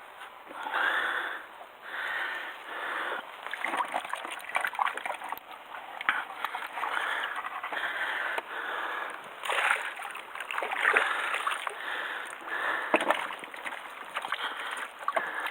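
Water lapping and sloshing against the hull of a moored fishing raft in uneven swells, with a few sharp knocks.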